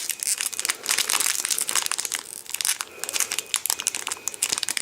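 Booster pack's plastic wrapper crinkling and crackling in the hands as it is worked at and pulled to tear it open: a dense, irregular run of small crackles.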